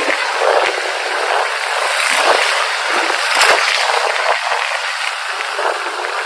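Wind and road noise rushing over a motorcycle rider's camera microphone while riding, loud and steady, with a few brief louder gusts or knocks.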